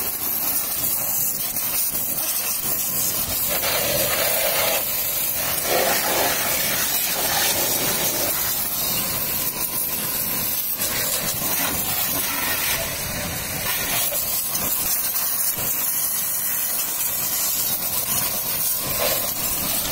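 High-pressure water jet from a pressure washer spray gun hissing steadily as it blasts water onto a motorcycle's rear wheel, chain and underside. The spatter changes a little as the jet moves from one part to another.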